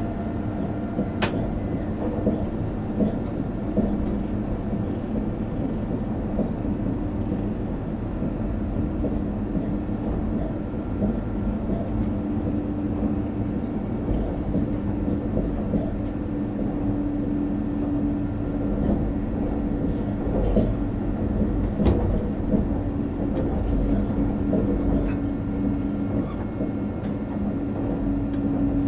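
Electric train running at speed, heard from the front cab: a steady rumble of wheels on rail with a humming tone that grows stronger about halfway through. A few sharp clicks as the wheels cross rail joints and points.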